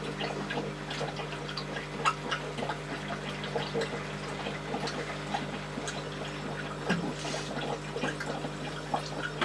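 Small water pump humming steadily while water from its hose splashes and trickles into an aquarium, refilling it after a substrate change.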